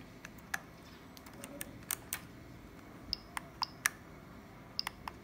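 Rotary encoder knob on a 3D printer's graphic LCD controller being turned and pressed by hand: an irregular series of about a dozen sharp clicks, a few of them with a short high chirp.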